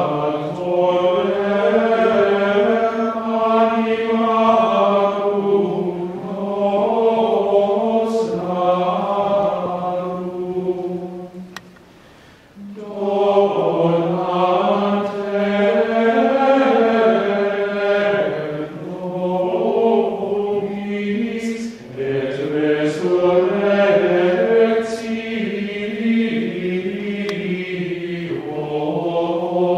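Latin plainchant sung in unison by a group of voices, in flowing phrases with a brief pause for breath about twelve seconds in before the chant resumes.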